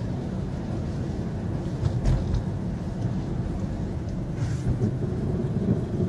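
Car driving on a snow-covered road, heard from inside the cabin: a steady low rumble of tyres and engine, with a single thump about two seconds in.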